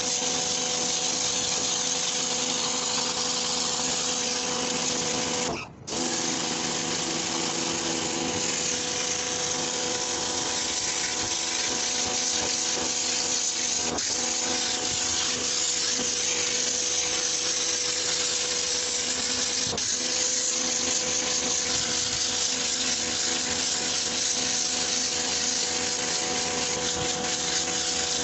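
Pressure washer running steadily, its motor and pump giving a steady hum under the hiss of the water jet spraying a shag carpet. The sound breaks off briefly about six seconds in.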